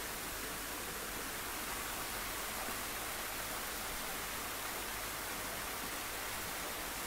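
Steady, even hiss with a faint low hum beneath it, unchanging throughout.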